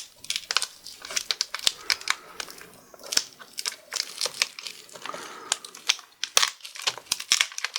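Crinkling and irregular light clicking from a laptop LCD panel and its taped ribbon cable being handled.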